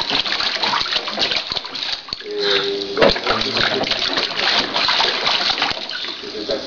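Water splashing and sloshing in a plastic baby bathtub as a baby kicks his legs in it, in quick irregular splashes. A short voice is heard about two and a half seconds in, followed by a sharp knock.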